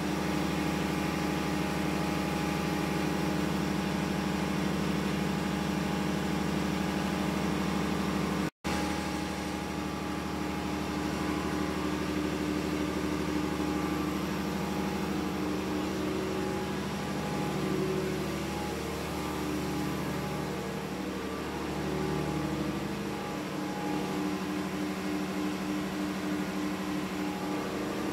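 Steady drone of a ship's engine-room machinery: a constant hum made of several steady tones. It drops out for an instant about eight and a half seconds in, and its deepest part fades about two-thirds of the way through.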